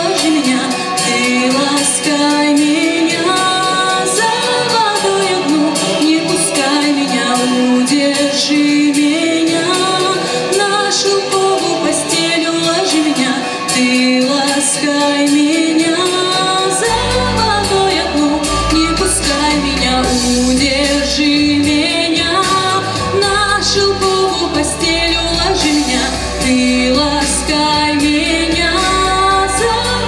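A woman singing a song into a microphone over instrumental accompaniment. A deep bass line comes in about halfway through.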